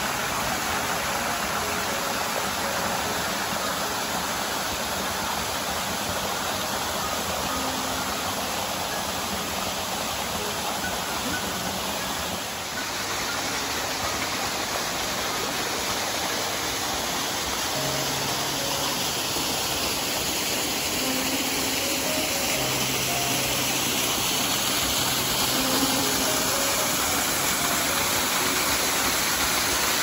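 Steady rushing of a small rocky jungle stream, water pouring and splashing over boulders in little cascades. Soft background music notes sound faintly under the water.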